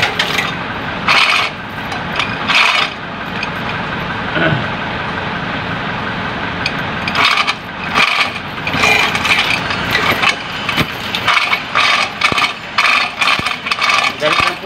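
Metal clinking and clanking in irregular bursts, busiest in the second half, from a chain hoist's chain and the heavy truck transmission hanging on it as it is worked down.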